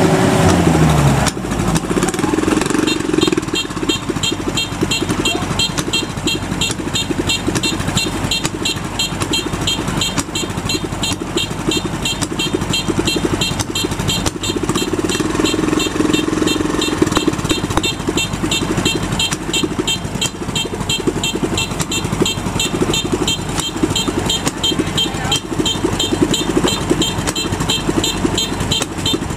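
Kubota DC-93 Extra combine harvester's diesel engine running steadily with the machine's threshing gear turning, its pitch dropping in the first second or so. A fast, regular, high-pitched ticking runs over it from a few seconds in.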